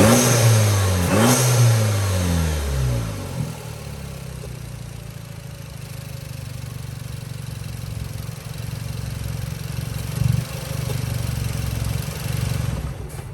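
Straight-piped, APR-tuned 2017 Volkswagen Passat R-Line engine breathing through a new AEM intake. It is revved twice in the first couple of seconds, the pitch falling back each time. It then settles into a steady idle, with one short blip about ten seconds in.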